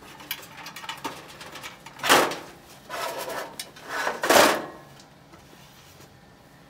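Maytag dryer's steel drum pulled forward out of the cabinet: a few light knocks, then loud scraping rubs against the cabinet about two seconds in and again around four seconds in.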